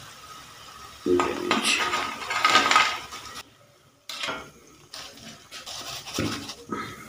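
Wire spider strainer scraping and clinking against an aluminium pot as fries are scooped out of hot frying oil, with the oil sizzling around them. The clatter comes in several bouts, loudest about a second in.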